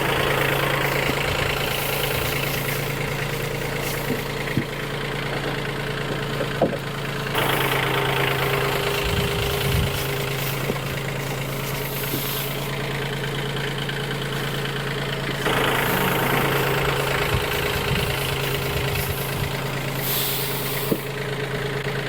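An engine running steadily at idle, with a low, even hum.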